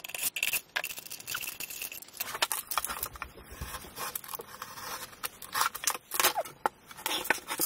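A cordless driver briefly backing out screws, then a thin aluminium heat-shield sheet cut from a drink can being pulled off and handled: irregular crinkling, scraping and light clattering.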